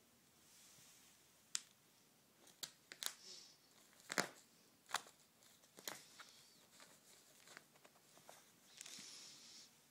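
Cat playing with a toy on a cardboard board: quiet, irregular taps and scrapes of paws, claws and toy against the cardboard, the sharpest a little after four seconds, with a short stretch of raspy clawing near the end.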